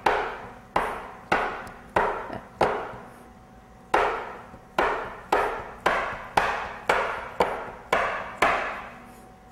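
Bench knife chopping a chilled stick of butter into pieces on the work surface: a steady series of sharp chops, about two a second, with a pause of about a second partway through.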